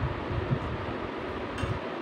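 Steady background hiss of the room, with a few soft low thumps and faint small clicks.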